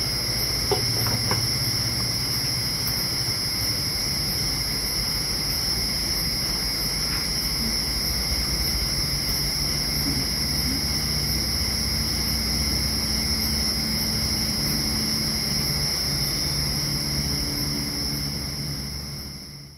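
Steady rushing of the flame burning under a cooking pot, with a constant high insect chorus over it. A couple of light metal clinks about a second in as the pot's lid goes on; the sound fades out at the end.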